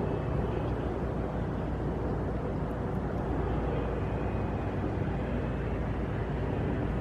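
Steady distant mechanical rumble with a faint low hum, even throughout, and no bird calls.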